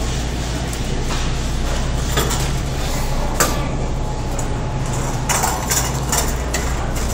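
Metal wire shopping cart rattling and clinking as it is pushed, with a few sharp clacks about two, three and a half, and five to six seconds in, over the steady low hum of a large store.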